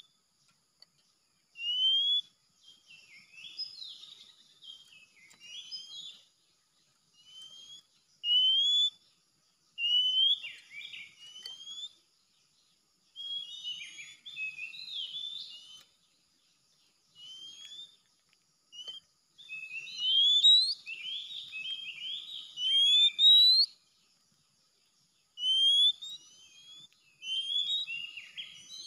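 Oriental magpie-robin singing: short phrases of clear rising whistles mixed with jumbled scratchy notes, repeated every second or two with brief pauses between them.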